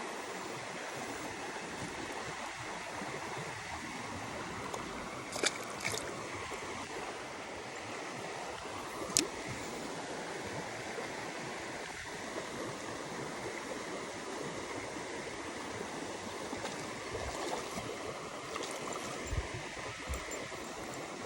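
Creek water running steadily, with a few sharp clicks about five and nine seconds in and a couple of soft knocks near the end.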